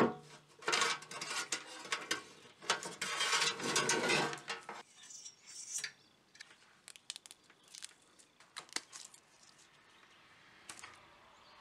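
Handling noise from the charger's old, cracked line cord being pulled through the sheet-steel case: scraping and rubbing for about the first five seconds, then scattered light clicks and rustles as the cord is worked in the fingers.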